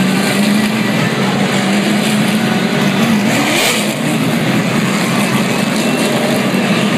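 Field of NASCAR stock cars racing past at speed, their V8 engines a loud, continuous drone, with one car passing close and loudest about halfway through.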